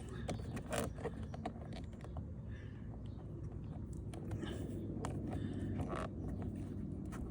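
Plastic creaking, scraping and small clicks as a car-door puddle light unit is pressed into its slot in the door trim: a tight fit that will not seat.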